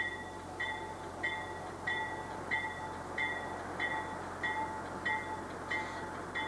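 A railroad bell ringing steadily, about three strokes every two seconds, over the low rumble of a slow-moving diesel-hauled passenger train.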